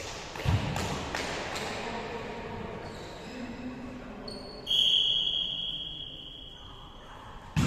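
A volleyball thudding on the hall floor a few times, then a referee's whistle blown in one steady blast of about two seconds, starting about five seconds in, signalling service. The ball is struck sharply right at the end, on the serve.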